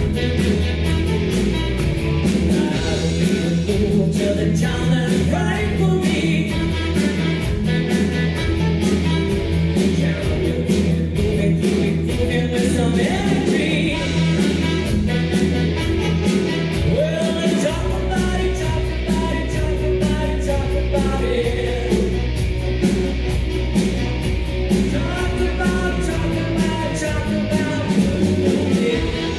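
A live rock band playing: electric guitars, bass and drums, with a singer carrying the melody.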